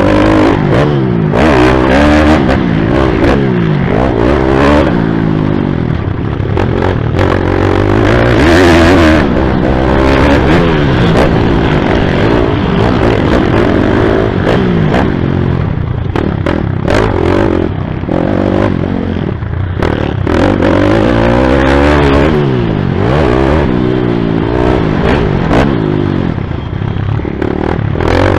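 YCF pit bike's single-cylinder four-stroke engine revving hard and falling back over and over as it is ridden around a motocross track, picked up close on the rider's helmet. Knocks and rattles from the bike run alongside the engine.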